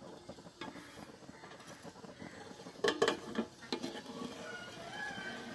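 Metal cookware clicking and clinking: a non-stick appam pan resting on a pot of boiling water while a batter sheet steams on it, with a quick run of louder clicks about three seconds in.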